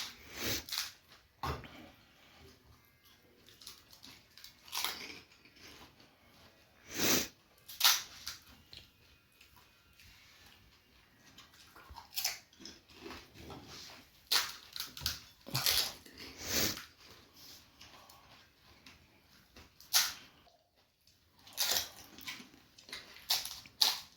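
Two people eating fuchka (panipuri) quickly: the crisp puri shells crunch and the spiced water is slurped in irregular short bursts, several of them loud.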